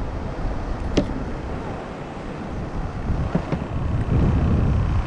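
Wind buffeting the microphone with a steady low rumble. A sharp click comes about a second in, then a few lighter clicks a couple of seconds later as pliers and the bait bucket are handled.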